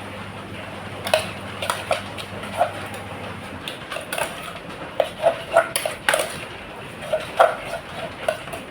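Irregular clinks and taps of spoons against dishes, a couple of sharp knocks a second from about a second in, over a steady hiss.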